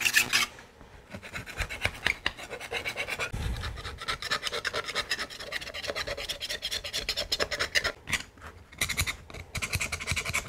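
Hand wire brush and a pointed scraping tool scrubbing loosened, chemically stripped paint off a small vise part, in quick repeated scraping strokes. The loudest scrape comes right at the start, and there is a short lull about eight seconds in.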